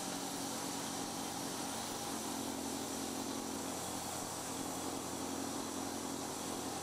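Steady machinery hiss with a constant low hum, unchanging throughout.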